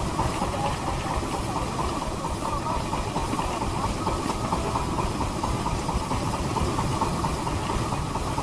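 A boat's engine running steadily, with wind rumbling on the microphone.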